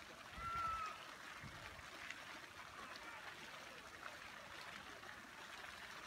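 Fountain jets falling back into the pool: a steady hiss and splash of water. A brief high-pitched call sounds about half a second in.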